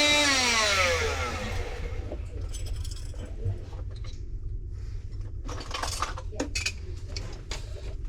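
A small electric cutting tool winds down after being switched off, its pitch falling over about a second and a half. Then light metallic clinks and clatter follow as metal parts and tools are handled.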